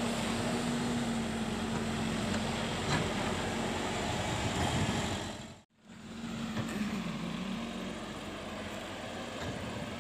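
JCB JS140 tracked excavator's diesel engine running with a steady hum while it works. The sound cuts out for a moment just past halfway, then the engine is heard again, its pitch dipping briefly.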